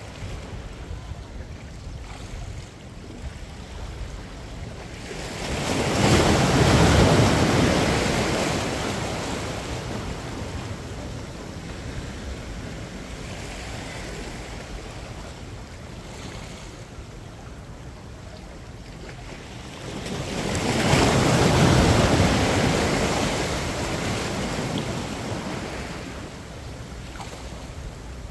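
Ocean waves surging against a boulder breakwater: two big waves about fifteen seconds apart, each swelling quickly into a loud wash and then fading slowly as the water drains back. Between them, quieter surf with a low wind rumble on the microphone.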